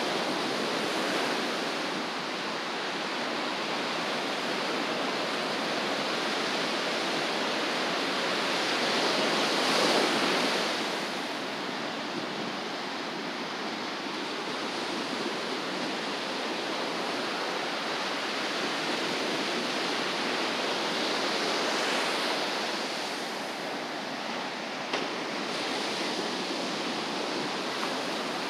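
Ocean surf breaking and washing ashore in a steady rush, swelling louder as a wave breaks about ten seconds in and again a little after twenty seconds.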